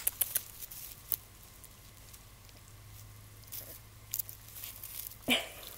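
Faint rustling and small crackles of dry grass and weed stalks as a beagle puppy sniffs and chews at them, with one brief louder noise near the end.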